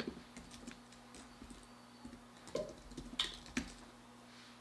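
Computer keyboard keystrokes: a handful of separate key clicks, the loudest ones bunched a little past the middle, over a faint steady low hum.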